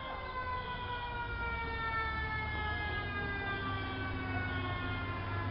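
Emergency vehicle siren on a departing fire truck or ambulance: one long tone gliding slowly down in pitch, over a low engine rumble.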